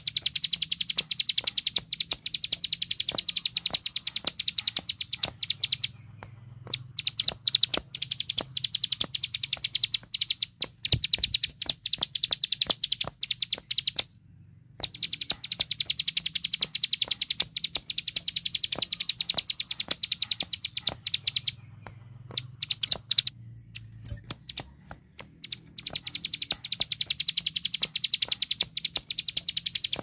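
Plain prinia (ciblek sawah) singing its rapid ticking song: long runs of fast, high clicking notes in bouts of several seconds, broken by brief pauses.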